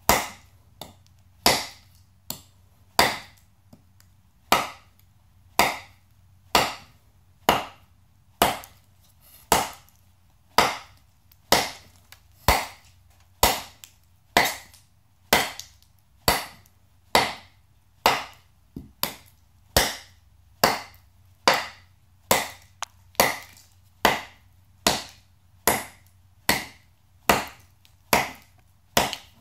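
A hand-forged, case-hardened railroad-spike knife chopping straight down into a log over and over, a sharp wooden chop about once a second, sometimes with a lighter stroke in between. This is an abuse test of the blade's edge retention.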